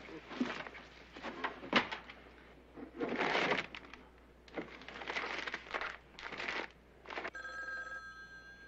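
Papers rustling and shuffling as stacks of documents are handled in a suitcase, in short irregular bursts. About seven seconds in, a telephone bell starts ringing.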